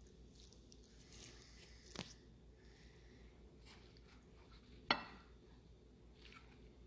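Paper towels rustling faintly as hands pat pieces of raw fish dry and wipe a ceramic plate, with a light knock about two seconds in and a sharper knock just before five seconds.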